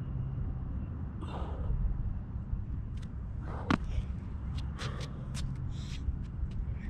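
A person coming down out of a handstand onto a hard outdoor court, with one sharp knock a little before four seconds in as the feet land, followed by a run of light shoe scuffs and clicks. A steady low rumble runs underneath.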